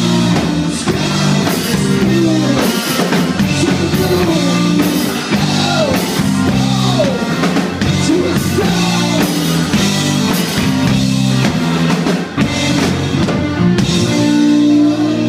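Live rock band playing: electric guitar, electric bass and drum kit, with a male singer's voice over them.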